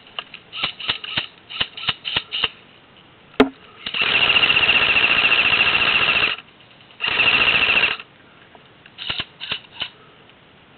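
Airsoft rifles firing: a quick string of single shots, then a long full-auto burst of about two and a half seconds, a shorter burst of about a second, and a few more single shots near the end.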